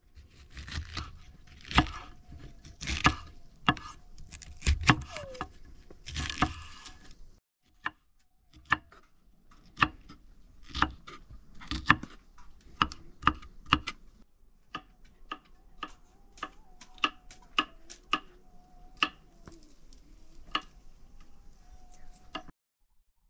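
Knife chopping food on a cutting board: separate sharp strikes at an uneven pace of roughly one a second, closer together in places.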